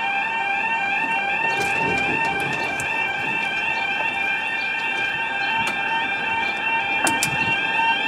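UK level crossing's audible warning alarm sounding a steady warbling 'yodel' tone while the road barriers lower, then cutting off suddenly near the end once the barriers are down. A couple of sharp clicks come shortly before it stops.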